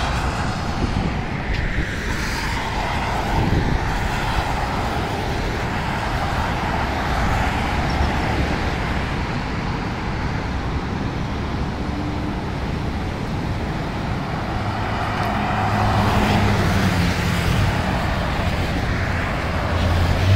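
Road traffic: cars driving past on a two-lane road over a steady rush of noise, with one car passing close and louder about three-quarters of the way through.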